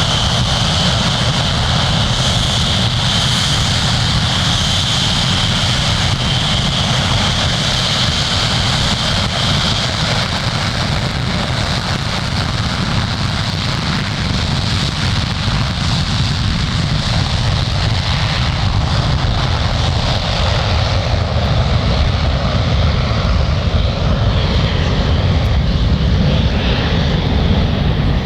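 Douglas DC-8-55F's Pratt & Whitney JT3D turbofans running loud and steady, a deep rumble and rushing noise with a high whine that fades about a third of the way through.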